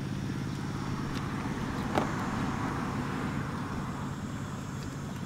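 A motor vehicle's engine running steadily, swelling and then fading over the middle of the stretch as if passing by, with one sharp knock about two seconds in.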